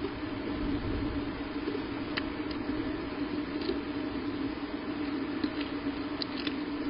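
A steady low rumble with a constant hum, and a handful of faint clicks and snaps from about two seconds in, as a bald eagle tears at a fish among the sticks of its nest.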